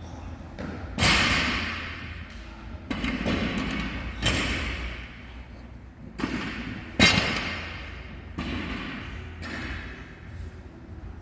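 A series of heavy thuds and clanks, about five sharp impacts each with a short ringing tail: empty barbells being set down on the gym floor after overhead squats.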